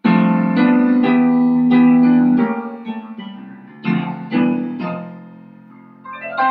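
Background music on a piano-like keyboard: chords struck and left to ring out, a loud chord at the start and fresh notes about four seconds in, fading toward the end.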